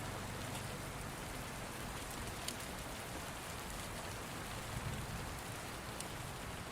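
Steady rain falling as an even hiss, with a few sharper raindrop ticks standing out, one about two and a half seconds in and another about six seconds in.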